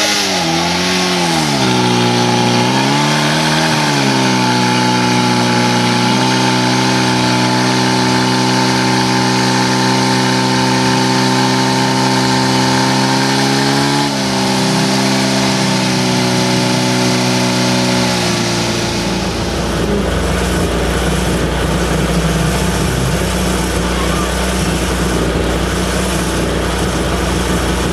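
Portable fire pump engine starting and revving, its pitch swinging up and down for the first few seconds. It then runs steadily at high revs while pumping water, with a brief dip about 14 seconds in, and stops about 18 seconds in. A low steady hum with background noise follows.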